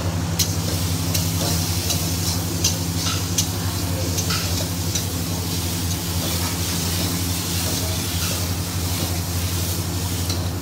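A spatula stirring and scraping prawn and potato masala as it fries and sizzles in a metal kadai, with scattered clicks of the spatula against the pan. A steady low hum runs underneath.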